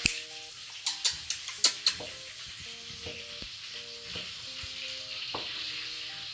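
A few sharp knife chops on a wooden cutting board in the first two seconds, over a steady sizzling hiss and soft background music.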